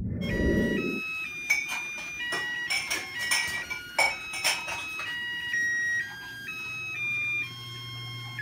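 A simple tune played in plain electronic beeping tones, one held note after another stepping up and down in pitch. Light clicks and taps are scattered through the first half.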